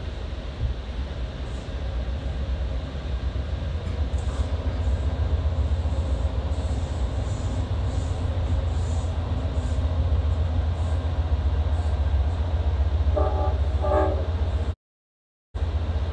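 Steady low rumble of a passenger train running at speed, heard from inside the coach, while an Amtrak diesel locomotive and its train run alongside on the next track. Near the end come two short horn blasts, and then the sound cuts out completely for under a second.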